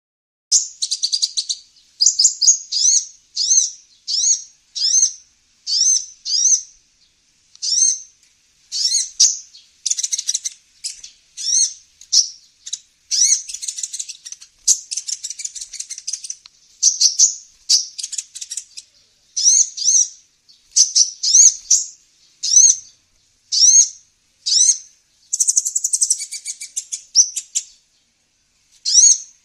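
Sunbird ('kolibri ninja') calling: rapid high-pitched chirps in short bursts roughly once a second, with brief pauses between the bursts.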